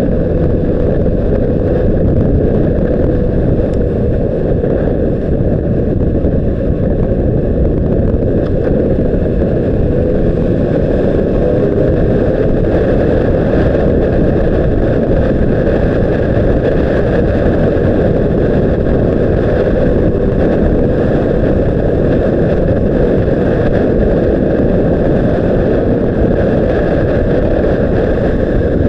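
Honda CBR600RR's inline-four engine running at a steady pace while riding, mixed with wind buffeting the microphone: a dense, steady low rumble with little change in pitch.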